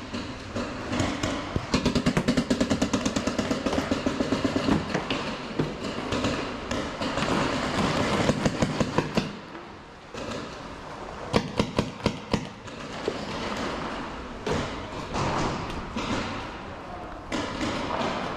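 Paintball markers firing: a rapid stream of shots, about ten a second, for a few seconds, then scattered shots. After a short lull come a few single sharp cracks.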